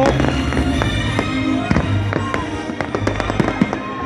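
Fireworks going off, many sharp pops and crackles in quick, irregular succession, with music playing underneath.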